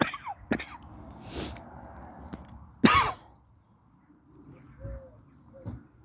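A person coughing twice in sharp bursts, about three seconds apart, with a short breathy hiss between them.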